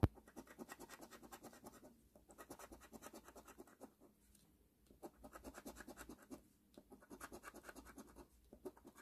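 Scratch-off lottery ticket being scratched, scraping the coating off the winning numbers in runs of quick rubbing strokes, about ten a second, with brief pauses between them. A sharp click comes right at the start.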